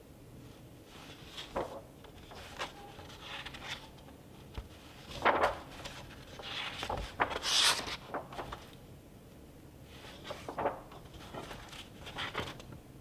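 Pages of a hardcover book being turned by hand: a series of short paper rustles and swishes, the loudest a little past halfway through.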